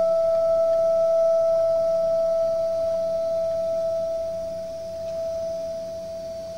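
A single held high note from the ensemble, almost a pure tone with no wavering, slowly fading away.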